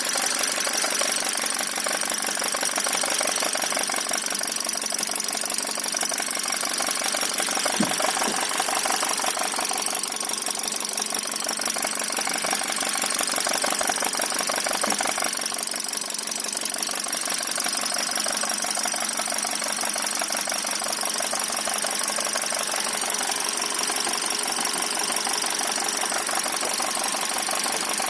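Toyota Calya's engine running with a rapid, steady ticking-knocking. This is the strange noise the owner hears on a car with under 5,000 km that has not yet had its first oil change.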